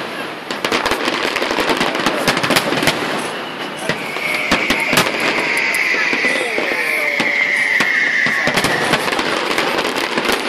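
Aerial fireworks display: many shells bursting at once in a dense run of rapid pops and crackles. Through the middle a long high hiss slowly falls in pitch over several seconds.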